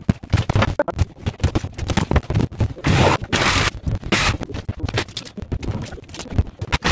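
Plaster-and-wood-lath wall being broken open by hand and hammer: a quick, irregular run of knocks and cracks as lath and plaster come away, with a longer scraping, crumbling rush about three seconds in.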